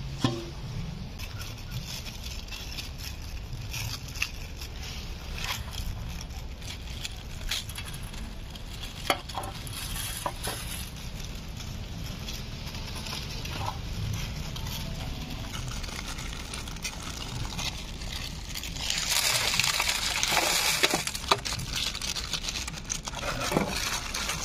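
Plastic instant-noodle packets being torn open and crinkled, with scattered small taps and clicks as dry noodle cakes and seasoning sachets are set on a steel plate. A longer, louder stretch of rustling comes about 19 seconds in.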